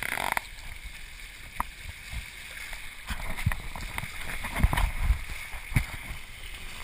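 Water rushing and splashing past the hull of a small handmade proa sailing through choppy water. Irregular low thumps of waves slapping the hull run through it, loudest in a cluster a little past the middle, with a few sharp knocks.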